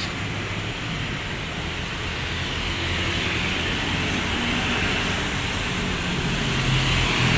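Steady street traffic noise: a low engine rumble under a broad hiss, growing slightly louder toward the end.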